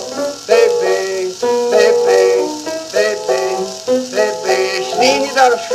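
Instrumental break of an old blues recording played from a 78 rpm record, with light surface hiss.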